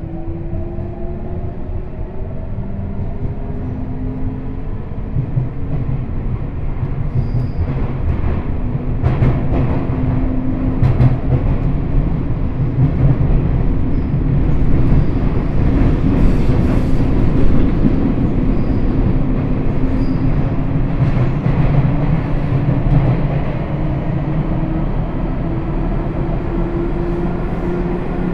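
A Sotetsu 8000 series electric train running: the whining tones of its Hitachi GTO-VVVF inverter and traction motors shift in pitch over a rumble of wheels on rail. The rumble grows louder until about halfway and then eases, with a few sharp clicks, and a slowly rising whine comes in near the end.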